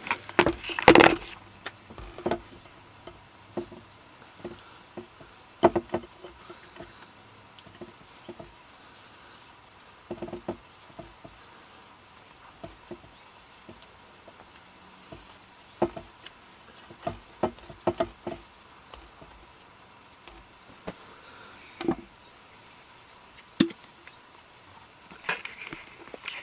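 Intermittent light knocks, taps and clatter of hands handling food, a plate and utensils, with the loudest clatter about a second in.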